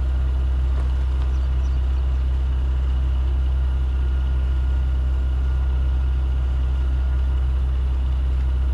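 Heavy truck's diesel engine idling with a steady low drone.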